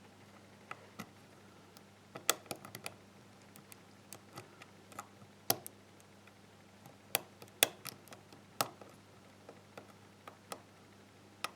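A lock pick working the pins of a GeGe euro-cylinder pin tumbler lock: irregular sharp metallic clicks and taps, a few much louder than the others.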